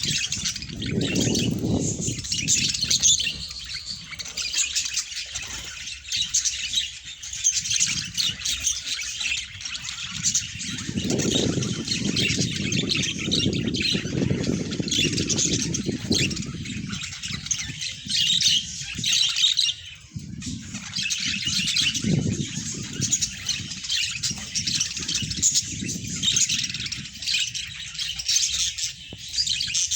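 A flock of budgerigars chattering and squawking without a break, a dense high warbling. A lower rushing noise rises under the chatter three times, about a third of the way in, in the middle and towards the end.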